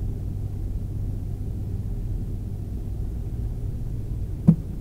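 Steady low rumble of an airliner cabin as the plane taxis slowly, picked up by a camera mounted on the window. A single sharp thump stands out near the end.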